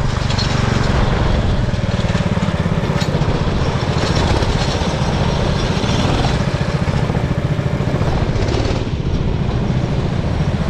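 Racing kart's small engine running hard at speed, heard up close from the kart, with a brief slight easing about nine seconds in.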